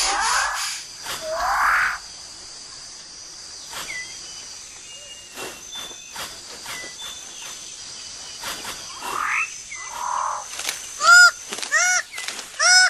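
Tropical rainforest ambience: a steady high insect hum with scattered chirps and clicks, and two harsh sweeping animal calls in the first two seconds. From about eleven seconds in, a run of loud calls repeats about twice a second, each rising and falling in pitch.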